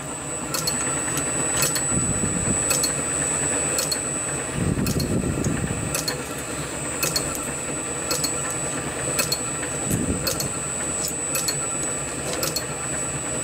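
Small metal-working lathe running steadily, with a thin high whine and a light tick about twice a second.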